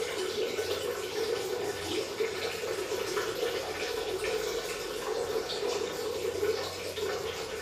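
Water running steadily in a small bathroom.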